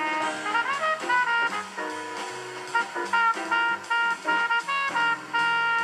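Jazz with a brass section of trumpets and trombones, playing from a radio tuned to a jazz station.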